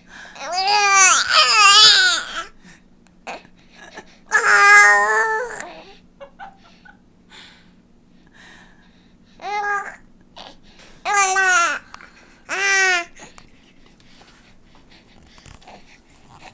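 Baby babbling in a string of high, wavering vocal sounds, about five of them with pauses between, the second held longest. These are playful sounds she is enjoying making.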